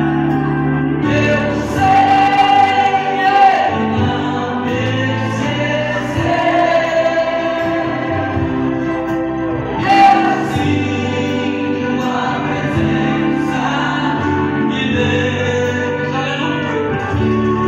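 Gospel song: a man sings through a microphone and PA with instrumental accompaniment, holding long notes over steady bass chords, with a brief loud accent about halfway through.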